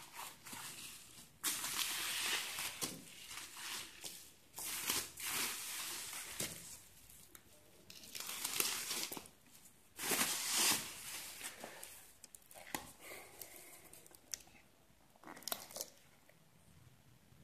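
Plastic bubble wrap being pulled off a plastic tub and crumpled, rustling and crinkling in irregular bursts, the loudest about ten seconds in, with a few short sharp crinkles near the end.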